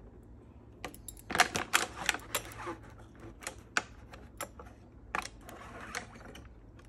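Clear plastic blister packaging crackling and clicking as it is cut with scissors and pulled apart, with irregular sharp clicks, thickest after about a second and again near five seconds.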